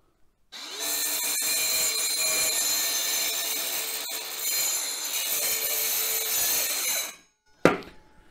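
DeWalt DCS571N brushless mini circular saw starting abruptly about half a second in, then running steadily as it plunge-cuts through laminate-faced wet wall panel for about six and a half seconds before stopping. A single sharp knock follows near the end.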